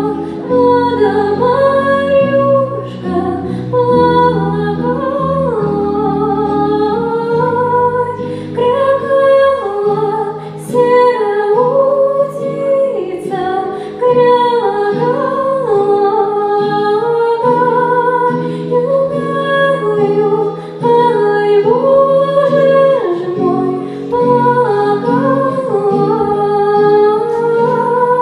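Music: female voices singing a melody over instrumental accompaniment with sustained low notes.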